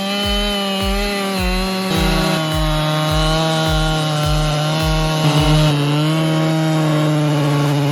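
Gas chainsaw running at full throttle as it cuts through a large tree trunk. Its steady high engine note drops a little about two seconds in as the chain bites.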